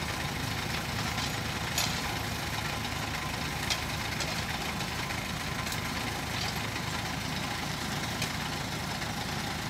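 Mini excavator's diesel engine running steadily at a low throb while the arm and bucket are worked, with a few brief sharp clicks.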